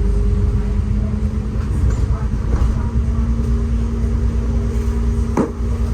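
City bus running, heard from inside the cabin: a steady low rumble with a constant hum from the drivetrain. There is a sharp click about five and a half seconds in.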